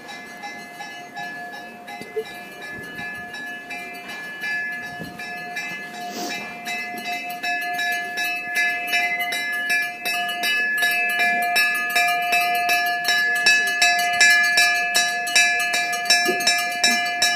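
A temple bell rung over and over in quick, even strokes, its ringing tones running together into a steady chime. It grows steadily louder until the strokes are loud near the end.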